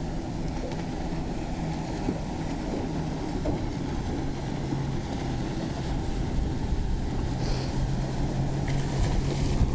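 Fishing boat's outboard motor running steadily, with water and wind noise; it gets a little louder about six seconds in.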